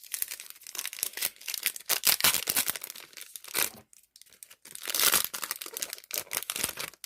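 Foil trading-card pack wrapper crinkling and tearing as it is ripped open by hand, in a run of crackly rustles with louder spells about two and five seconds in.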